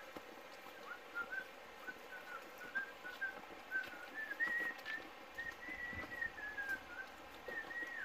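A person whistling a tune: short clear notes stepping up and down, with a few longer held notes and slides.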